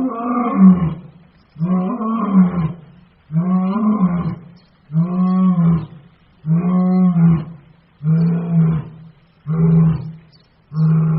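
A lion roaring in a series of about eight deep grunting roars, evenly spaced about one and a half seconds apart, each a little shorter than the one before.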